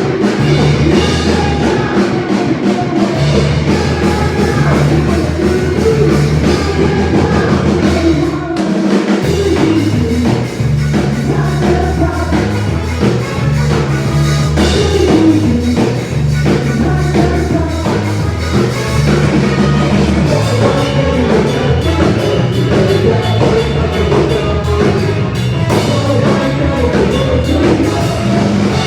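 Live rock band playing during a sound check, with drum kit, bass and guitar. The bass drops out briefly about eight seconds in.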